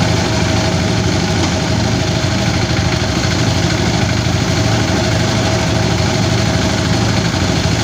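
Engine-driven rice threshing machine running steadily: a continuous engine drone with a steady higher hum over it.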